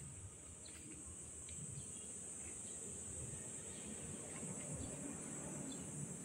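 Insects droning steadily at a high pitch, with a few faint short chirps over a low background hum.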